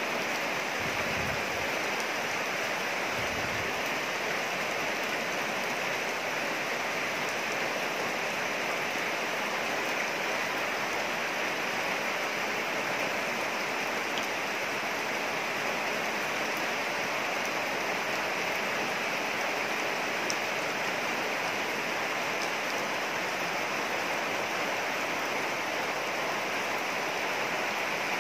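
Steady rain falling on trees and grass, an even, unbroken hiss.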